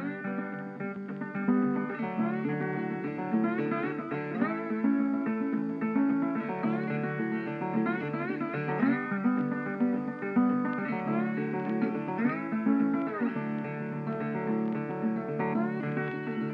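Background music of plucked guitar, notes picked in a continuous flowing pattern.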